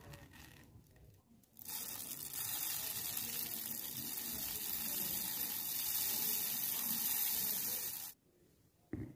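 Steady hissing noise that starts about a second and a half in and cuts off abruptly about eight seconds in.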